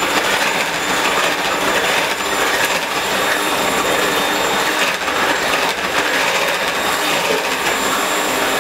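Electric kitchen mixer running steadily, beating waffle batter.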